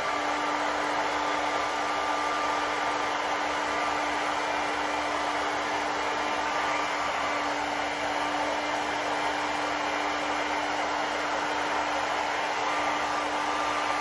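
Handheld hair dryer running steadily: a constant rush of blown air with a steady hum underneath, used to warm an LED strip so it bends around a snowboard's nose.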